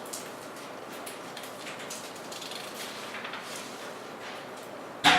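Quiet room tone with faint scattered clicks, then one sharp knock near the end.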